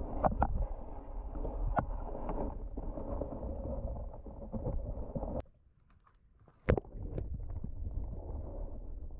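Muffled underwater sound picked up by a submerged camera: a low rumble of moving water with scattered clicks and knocks. Past the middle it drops almost to silence for about a second, then returns with a sharp click.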